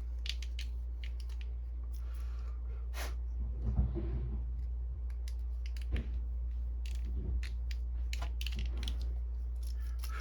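Light clicks, taps and scratches of a pointed knife tip picking at a plastic inkjet cartridge, with a few louder knocks, over a steady low hum.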